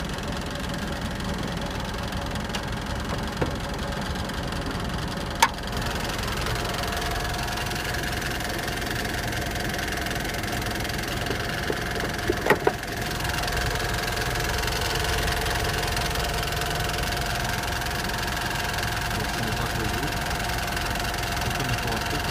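Mitsubishi Pajero Sport's 2.5 litre 4D56 four-cylinder turbodiesel running steadily with an extraneous noise. A thin steady whine comes in several seconds in and grows stronger about halfway, and there are two short sharp clicks.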